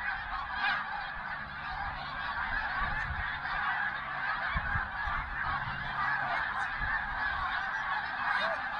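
A large flock of snow geese calling overhead as they circle in to land: a dense, continuous chorus of many overlapping honks and yelps.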